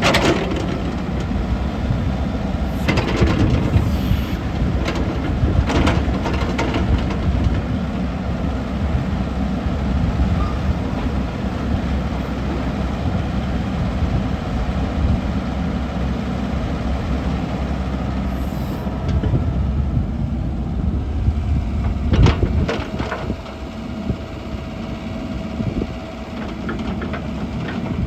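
Diesel engine of a Komatsu PC88MR-10 compact hydraulic excavator running steadily, with a few sharp knocks. The sound drops somewhat in loudness about 22 seconds in.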